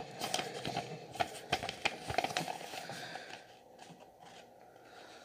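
Sheet of paper being handled and folded back into a paper popper to reload it: soft rustles, crinkles and light taps, quieter after about three seconds.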